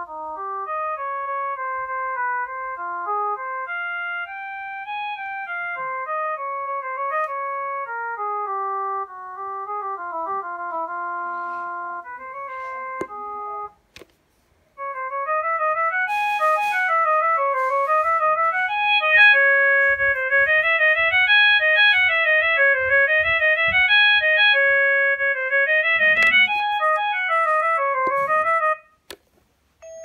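Two ringtones from a Vodafone Classic phone's built-in ringtone list, previewed in turn through its speaker as simple electronic keyboard-like melodies. A slower tune stops after about thirteen seconds. After a brief pause, a faster tune of rising and falling arpeggios plays until just before the end, with a few clicks along the way.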